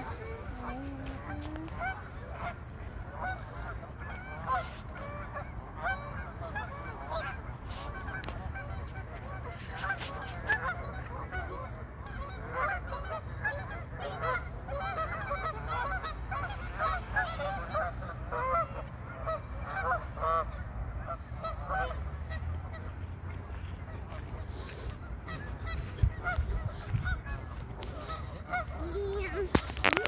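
A large flock of Canada geese honking, many calls overlapping, thickest in the middle. A steady low rumble runs underneath.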